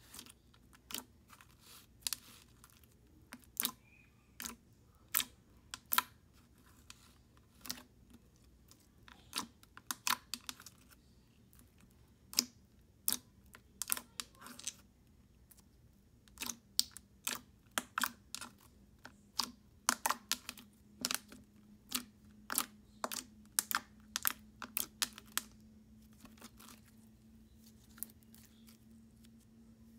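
Thick, ultra-clear slime topped with foam beads being pressed and worked by hand, making irregular sharp clicks and pops in quick clusters with short pauses. The clicking dies out near the end.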